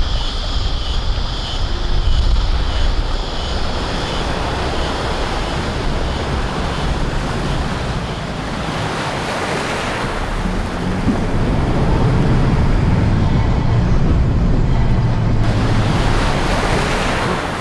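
Rushing, churning river water as a 4WD ute drives through a deep flooded crossing in second gear, pushing a bow wave. Its engine hum grows louder in the second half as it comes closer, with wind rumbling on the microphone.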